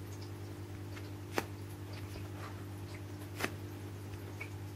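Quiet steady low hum with two short sharp clicks, one about a second and a half in and one about three and a half seconds in, as hands handle and turn a homemade squishy.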